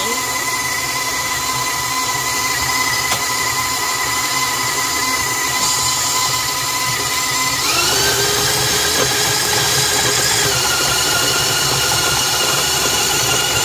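Electric mixer running steadily with a whining motor as it creams butter and sugar; about eight seconds in its pitch rises as it speeds up.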